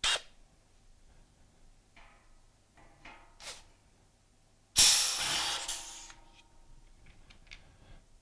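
Pneumatic rivet nut gun at work: a short sharp burst of air at the start, a few light clicks, then a loud hiss of exhausting air about five seconds in that dies away over a second or so as the tool cycles.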